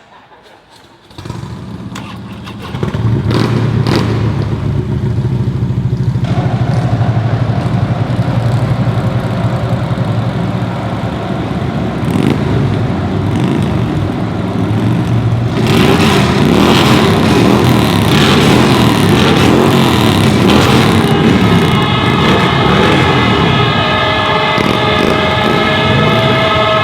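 Motorcycle engines running and revving in a loud, steady rumble. From about twenty seconds in, several air horns sound together in long steady tones over it.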